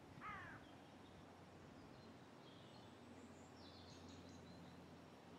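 Quiet outdoor ambience with faint birdsong: a short bird call just after the start, then a few faint high chirps around the middle, over a steady low hum.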